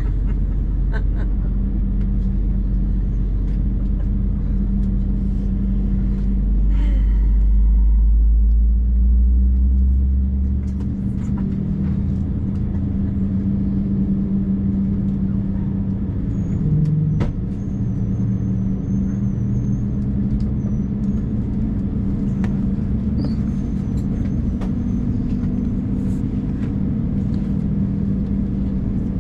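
Cabin noise of an Airbus A220-300 with its Pratt & Whitney PW1500G geared turbofans running: a deep rumble that grows a little louder and then stops abruptly about ten seconds in, leaving a steady engine hum.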